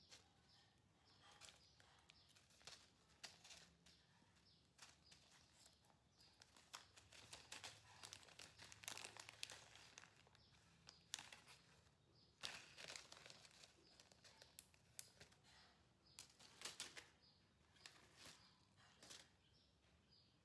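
Faint, irregular crinkling and rustling with many soft clicks, busiest in the middle.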